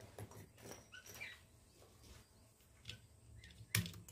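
Faint scattered clicks and light handling noises, with one sharper click near the end.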